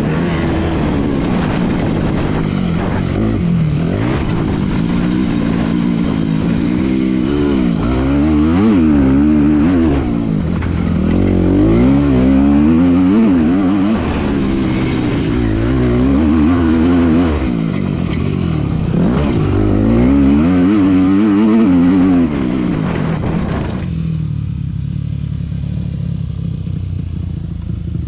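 Carbureted 2011 Yamaha YZ250F's single-cylinder four-stroke engine, recorded on the bike while riding, revving up and falling back over and over as the throttle is opened and closed. About twenty-four seconds in it changes to a motorcycle engine heard from further off, quieter and duller.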